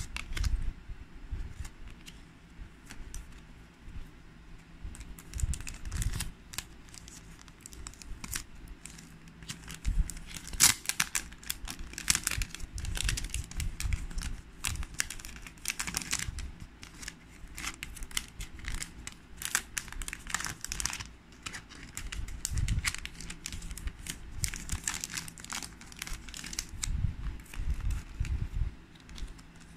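Packaging being handled and unwrapped by hand: irregular crinkling and rustling, with a sharper burst about eleven seconds in.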